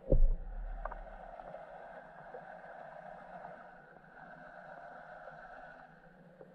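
Underwater recording on a lake bed: one heavy low thump, then a steady hissing whirr carried through the water that cuts off abruptly shortly before the end.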